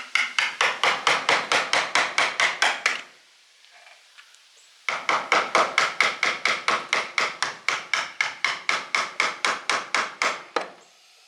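Rapid metal-on-metal hammer blows, about six or seven a second, in two runs with a pause of nearly two seconds between them. The hammer is driving an old electric motor's shaft against bearings that are seized on it.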